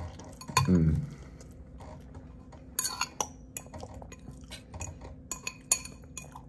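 Eating utensil tapping and scraping against a dish while someone eats: a run of sharp, irregular clinks starting about three seconds in, some with a short metallic ring. Near the start there is one brief voiced sound from the eater.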